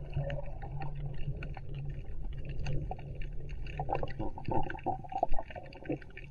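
Muffled underwater sound from a camera held below the surface: a steady low rumble of moving water with scattered crackling clicks, and a few louder swishes a little past the middle.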